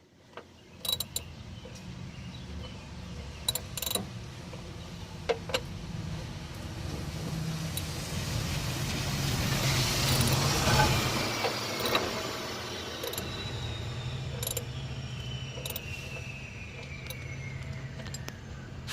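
Scattered light clicks and knocks of a part and tools being handled in a pickup's engine bay, over a steady low hum. About halfway through a passing vehicle swells and fades, with a faint whine falling in pitch near the end.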